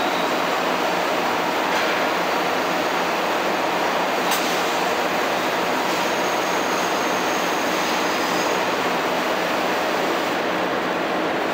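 Napkin paper machine running with a steady, even mechanical noise, and a single sharp click about four seconds in.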